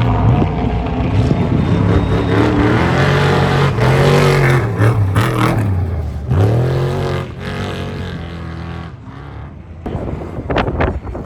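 Off-road race vehicle's engine at high revs going by, its pitch rising and dipping several times, then fading after about eight seconds; a few sharp knocks near the end.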